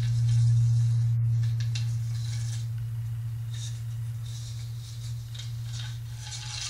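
Wooden spiral helix pieces handled and twisted together, with scattered soft clicks and rubs of wood on wood. Under them, a steady low hum that slowly fades.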